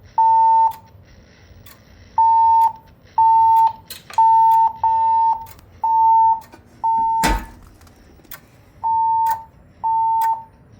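Fire alarm voice-evacuation speakers of a Siemens Desigo Modular (XLS-V) system sounding the evacuation alert tone: steady half-second beeps about a second apart, in groups separated by longer pauses, in the temporal-three evacuation pattern. A single sharp knock comes about seven seconds in.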